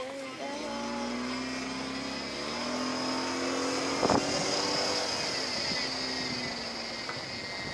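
Car engine pulling along a dirt track, its note climbing as it accelerates, over a steady rush of tyre and road noise. A sharp knock stands out about four seconds in.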